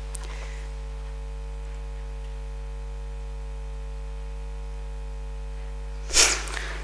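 Steady electrical mains hum: a low drone with a few fixed higher tones above it. A short burst of noise comes about six seconds in.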